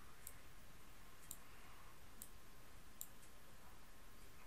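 Faint computer mouse clicks, four of them about a second apart, over a low steady hiss.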